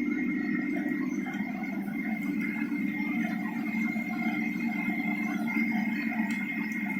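Steam boiler plant running: a steady low hum under a constant high whine, with a few faint clicks.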